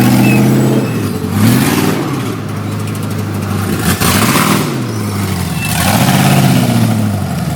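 Loud vehicle engine revved up and down several times with a loud exhaust, which the onlookers take to be over the trail's 95-decibel noise limit.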